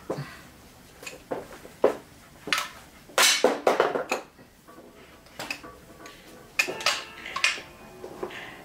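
Metal-on-metal clinks and taps from a hand tool working on the collars and screws of a Bernina 217 industrial sewing machine's main shaft. There is a string of sharp separate clinks, with a quick run of them about three seconds in.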